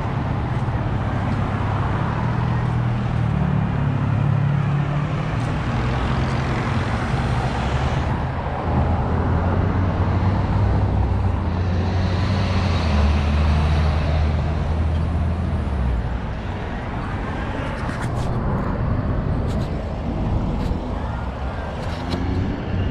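Road traffic: cars and trucks driving by, a continuous rush of engine hum and tyre noise. A deeper engine drone swells in the middle and then fades.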